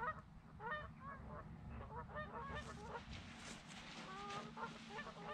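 A flock of geese honking, faint, with many short overlapping calls several times a second and a few longer held honks near the end.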